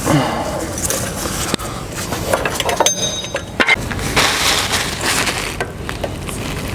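Metal tools and brake parts clinking, knocking and scraping as they are handled: a run of sharp clicks and knocks over a steady noisy background.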